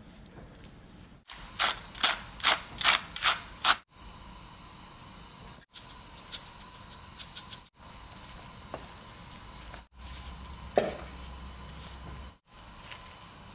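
Kitchen work sounds in short cut-together clips: a quick run of about nine sharp clicks, about four a second, then fainter clicks and a single knock.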